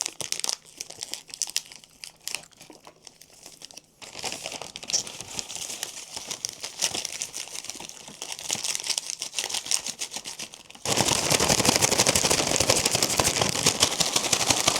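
A paper bag crinkling as it is handled, then shaken hard and continuously for about the last four seconds, the food and sauce inside rustling against the paper.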